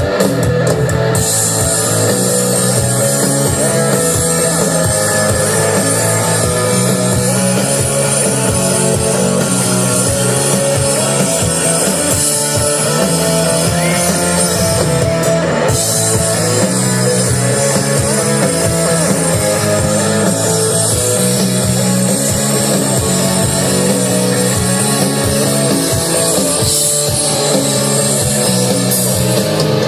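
Live rock band playing an instrumental passage without vocals: electric guitar over a steady drum kit and a repeating bass line.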